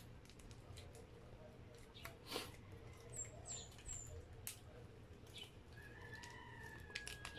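Small plastic seasoning sachets crinkling and being torn open, with scattered faint clicks and a sharper crackle about two seconds in.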